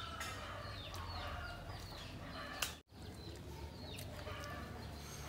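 Chickens clucking and calling, a run of short falling calls, over a steady low hum. About halfway there is a sharp click and a brief cut-out in the sound.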